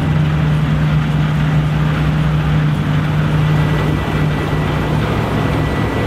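New Holland combine harvester working in barley, its engine and threshing machinery running under load with a steady, loud drone: a strong low hum with a thin high whine above it.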